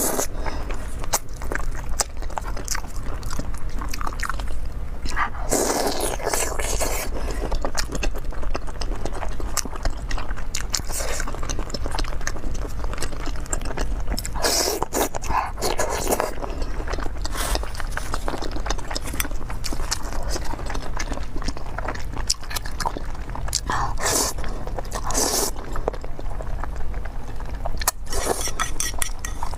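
Close-miked eating of marinated squid: irregular wet bites, chewing and mouth clicks. Near the end, noodles are slurped.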